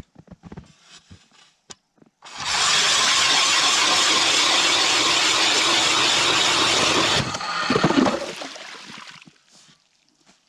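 ION battery-powered electric ice auger drilling down through lake ice in one steady run of about five seconds, then cutting off abruptly, followed by a couple of seconds of uneven, fading noise.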